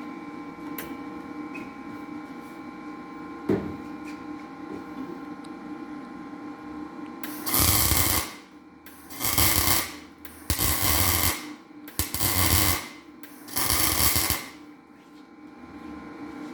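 Welder striking an arc in five short bursts, each under a second, laying weld blobs onto cylinder-head valve seats so the seats can be knocked out. A steady electrical hum with a few fixed tones underneath, and a single click about three and a half seconds in.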